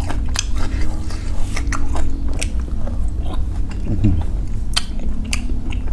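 A person chewing a mouthful of pork meatball noodle soup close to the microphone: irregular wet clicks and smacks of eating.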